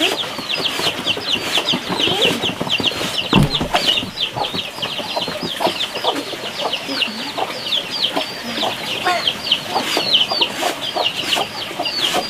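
Chickens: many chicks peeping continuously in rapid, high, short calls, with softer clucking lower down. A single low thump comes about three and a half seconds in.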